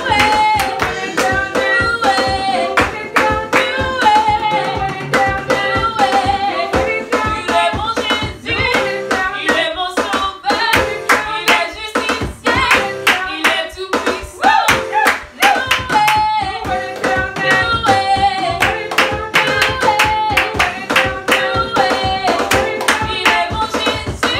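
Live praise song: a woman singing over an electronic keyboard, with an electronic drum kit played with sticks keeping a steady beat and hands clapping along.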